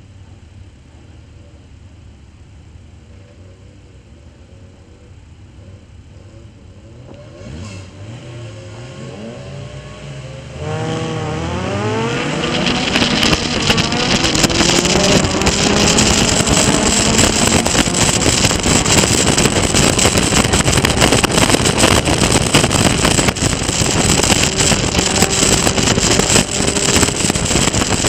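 Race-car engines idling and being blipped on the starting grid. About ten seconds in they rise sharply to full revs at the start, and the Caterham Seven's 1.6-litre Ford Sigma four-cylinder accelerates hard, climbing through the gears. Wind rushes over the open car at speed.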